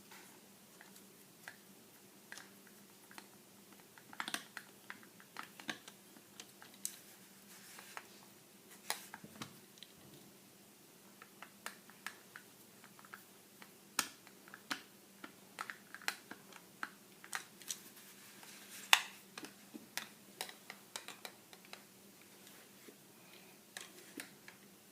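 Irregular small clicks and taps of a screwdriver and metal parts as the grip screws are undone and the grips worked off a Desert Eagle pistol frame, over a faint steady hum.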